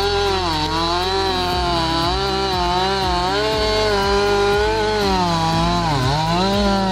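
Stihl MS 261 C two-stroke chainsaw running at high revs while cutting a log, its engine note wavering up and down as the chain works through the wood. The pitch dips sharply near the end as the engine is pulled down under load.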